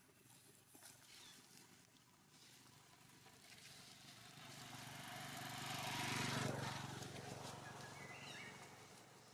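A motor vehicle passing by, its engine noise building to a peak about six seconds in and then fading away.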